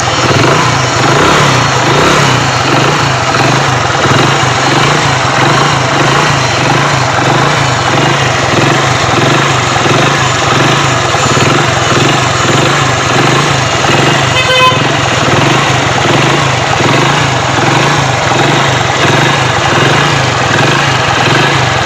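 Hero Splendor Pro's single-cylinder four-stroke engine running steadily after a repair on the magneto side, where a noise had come from a broken plate; this is the sound the repair is meant to have cured. A brief beep sounds a little past the middle.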